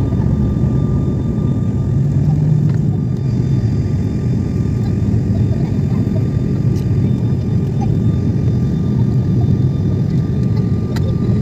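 Steady cabin drone of a turboprop airliner in flight: a dense low rumble of engines and airflow, with a faint steady whine above it.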